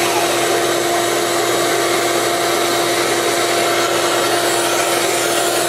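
A vacuum runs steadily, with a constant hum, drawing dust through the hose on a clear hole-saw dust shield. At first a cordless drill is also turning a hole saw as it finishes its cut through fibre-cement siding and OSB.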